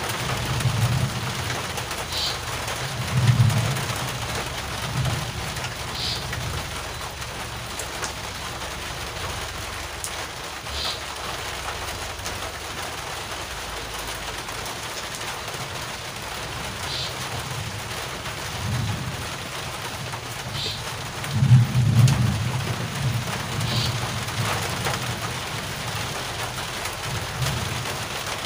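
Steady rain falling, a constant hiss, with low rumbles that come and go, the loudest about three-quarters of the way through.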